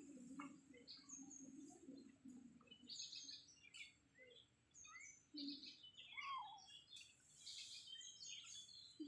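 Faint birdsong: clusters of short high chirps repeat every second or two. A low drone runs through the first few seconds.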